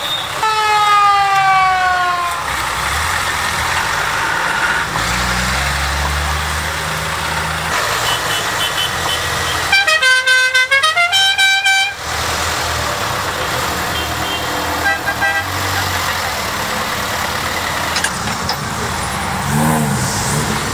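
Land Rover Santana engines running, with horns sounded over them: a falling horn tone near the start, short beeps, and a rapid multi-note musical horn tune about ten seconds in.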